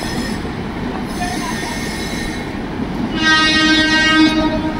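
Indian Railways LHB AC three-tier coaches rolling past with a steady rumble and a faint high wheel squeal in the first half. About three seconds in, a train horn sounds one steady note for about a second and a half, the loudest sound.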